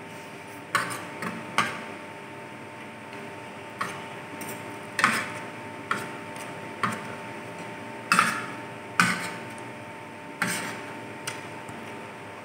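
A metal spoon and fork clinking and scraping against a ceramic plate, with about a dozen sharp, irregularly spaced clicks as spicy instant noodles are scooped up, alongside noodle slurping and eating sounds.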